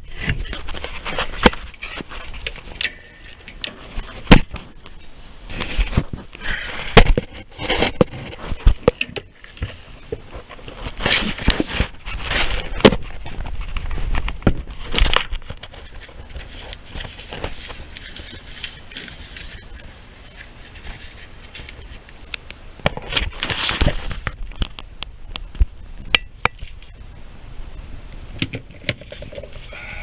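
Camera handling noise and movement: irregular knocks, clicks, scrapes and rustling as a person shifts about and handles the camera, with a few sharper thumps.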